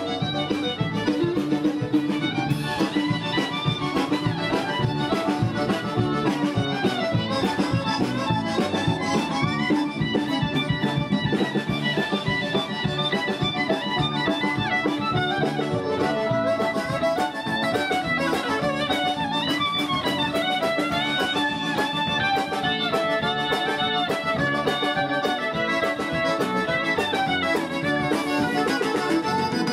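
Band music with a fiddle carrying the melody over a steady beat.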